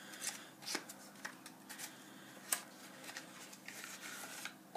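A small cardboard knife box and its paper contents being handled and opened by hand: scattered rustles, light clicks and taps, and a longer sliding scrape near the end.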